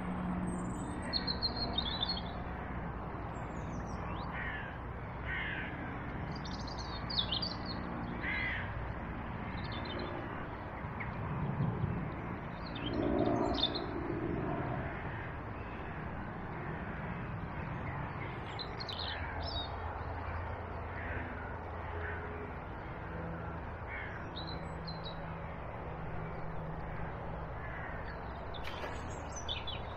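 Birds calling in short chirps and calls scattered throughout, over the steady rush of a swollen, fast-flowing river. A louder, lower sound rises briefly about halfway through.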